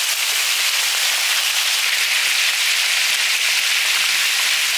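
Grouper pieces deep-frying in hot oil in a wide, flat metal pan: a steady, dense sizzle.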